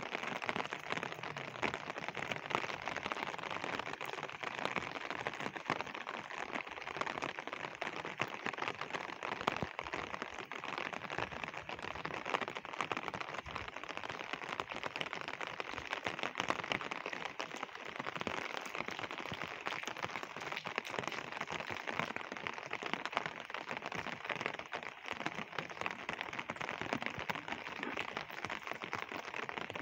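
Steady rain falling on a flat, wet concrete rooftop: an even, unbroken hiss made of many small drop impacts, with no let-up.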